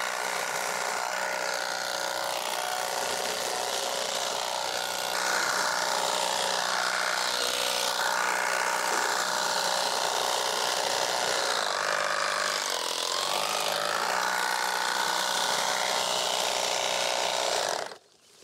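Battery-powered handheld tea harvesting machine running as it shears tea shoots, a steady whine of motor and cutting blades. It gets a little louder about five seconds in and cuts off suddenly near the end.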